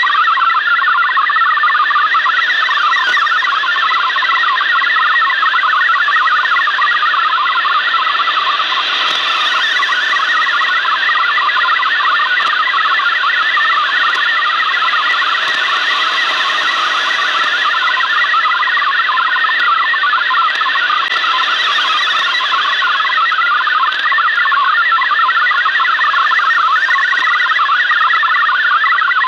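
MFSK64 digital data signal from a Yaesu FRG-7700 shortwave receiver: a steady, fast warble of rapidly hopping tones, over a hiss of shortwave noise, being decoded into text.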